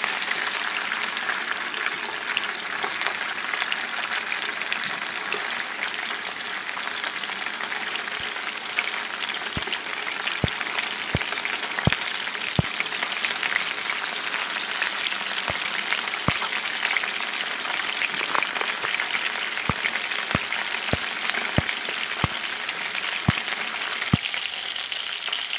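Pieces of sea ribbonfish shallow-frying in hot oil in a nonstick pan: a steady sizzle with scattered sharp pops and crackles of spitting oil.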